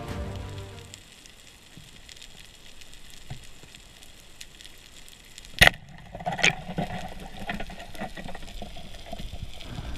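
Underwater, a speargun fires with one sharp snap about five and a half seconds in, followed by a weaker click under a second later, over a faint crackling background. Music fades out in the first second.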